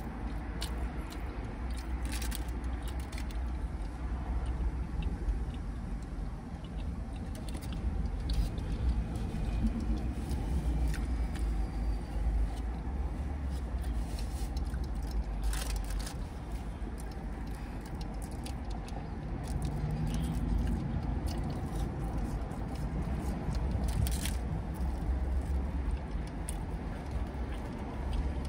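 A person eating tacos and chili: chewing, with scattered clicks and scrapes of handling the food and its container, over a steady low rumble.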